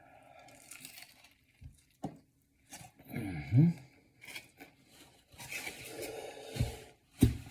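Paper sandwich wrapper crinkling and crunching, squishy eating sounds as a fried chicken sandwich is handled and bitten, with a short vocal sound from the eater about three seconds in.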